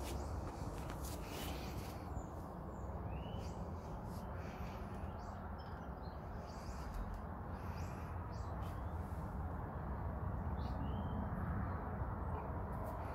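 Triumph Street Triple R's 675 cc three-cylinder engine idling steadily as it warms up from a cold start, with no revving.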